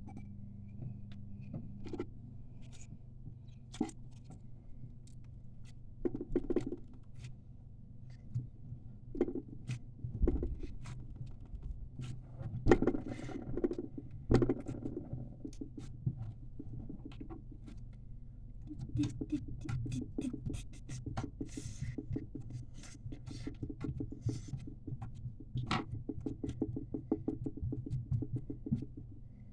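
Hand-made slime being squeezed and kneaded by hand, with many small sticky clicks and crackles. The clicks come thick and fast in a rapid run over the second half, over a steady low hum.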